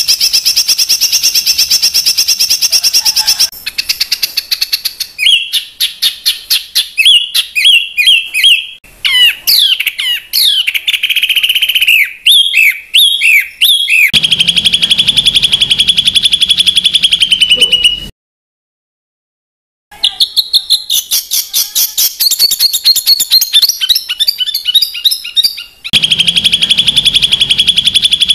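Recorded songbird song used as a masteran tutor track: fast, harsh, repeated trills and chattering phrases of high notes. The same rapid trill comes back several times. About eighteen seconds in, the song breaks off into about two seconds of complete silence, then starts again.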